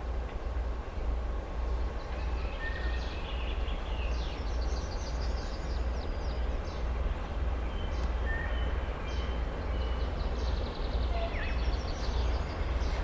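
A long freight train running past with a steady, pulsing low rumble, while songbirds keep up chirps and short trills over it.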